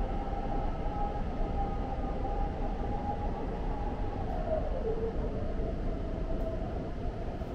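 Cabin noise of a Guangzhou Metro Line 18 train running through a tunnel: a steady rumble with a motor whine that dips in pitch about halfway through, then holds a little lower.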